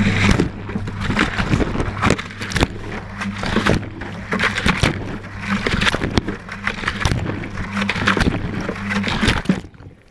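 Whirlpool Indiana 1400 front-loading washing machine tumbling its drum, heard from inside: a steady motor hum under water sloshing and irregular knocks as the load and the camera housing tumble. Everything stops suddenly near the end as the drum halts.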